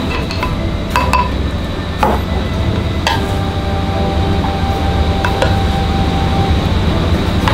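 Steady low kitchen hum with a few sharp clinks and knocks of a rice paddle and dishes as rice is scooped from a crock into a lacquered box.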